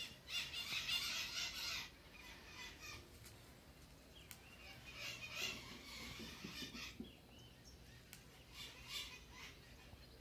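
Faint crunching of a fried cornmeal-and-capiçoba-greens fritter being bitten and chewed. It comes in three short spells: the strongest in about the first two seconds, another around five seconds in, and a shorter one near nine seconds.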